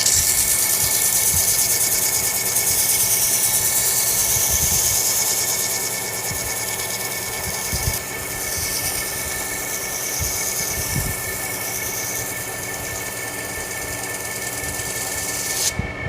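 Metal lathe running with a steady whine while sandpaper is held against the spinning spray-welded shaft, a loud high hiss of abrasion that rises and falls and stops near the end.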